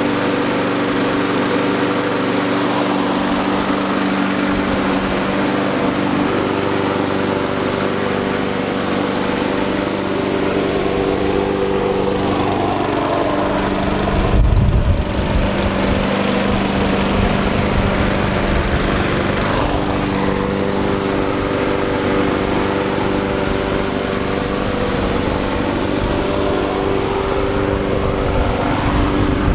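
Florabest petrol lawn mower's Briggs & Stratton engine running steadily. About halfway through, a low rumble joins in; it is loudest just as it starts and stays to the end.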